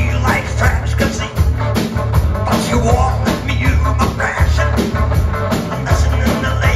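A live rock band playing: electric guitar through Marshall amplifiers, electric bass and a drum kit, with a heavy bass line and a steady drum beat.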